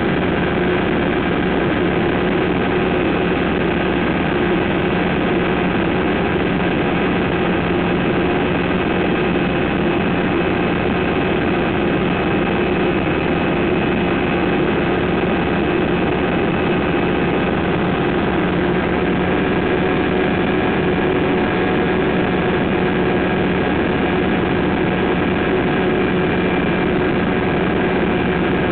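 Pou-du-Ciel (Flying Flea) ultralight's engine and propeller droning steadily in cruise flight, heard from inside the cockpit, with a constant rushing noise under the even engine hum; the pitch and level do not change.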